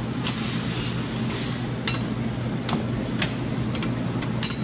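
Sharp metallic clicks and clinks from a coin-operated toy vending machine's coin mechanism, about five over the few seconds, two of them ringing briefly. A steady low hum sits underneath.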